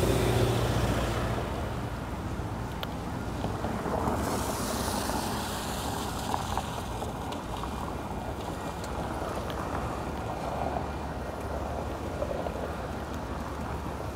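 Wind on the microphone and traffic noise on wet streets, with a low engine hum at the start. About four seconds in, a vehicle's tyres hiss past on the wet road for a few seconds.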